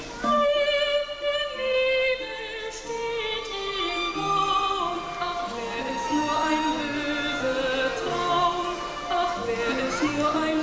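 Music with singing voices holding long notes that move from pitch to pitch in a slow melody.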